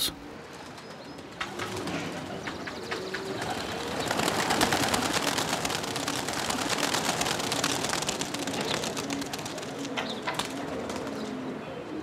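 A flock of Persian high-flyer pigeons taking to the air, a rush of flapping and clapping wings that swells about four seconds in, with pigeons cooing underneath.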